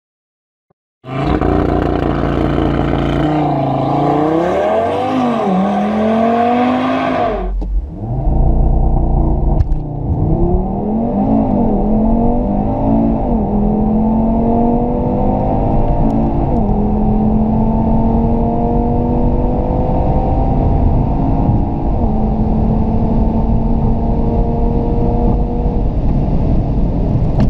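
Audi TT RS's turbocharged 2.5-litre five-cylinder engine under full-throttle acceleration, heard from inside the cabin. The pitch climbs steadily and drops sharply at each of several quick upshifts. Each gear pulls longer as speed builds past 200 km/h.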